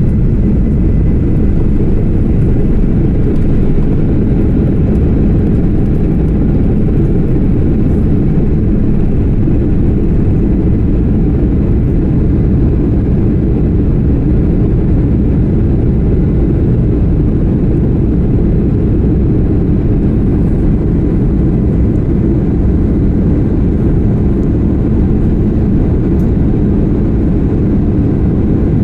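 Jet airliner's engines and airframe heard from inside the passenger cabin during takeoff: a loud, steady, deep noise that does not change.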